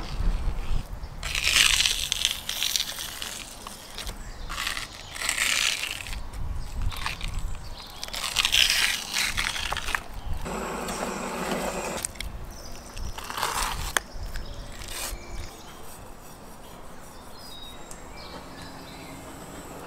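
Raw beef being cut with a knife and the membrane being peeled off a raw liver by hand on a wooden board: wet tearing and slicing in several bursts of a second or two. The sound goes quieter about two-thirds of the way through.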